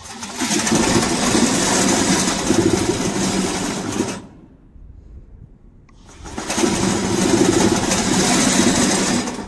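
Electric drive motors and tracks of a VIGORUN VTC550-90 remote control tracked mower running as it is driven by remote, in two runs of about four seconds each with a short pause between them.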